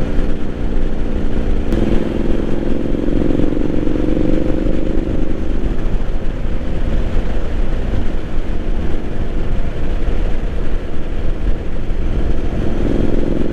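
Triumph Street Scrambler 900's parallel-twin engine running while riding, heard over steady wind and road noise. Its engine note is strongest from about two to six seconds in, then sinks back into the wind noise.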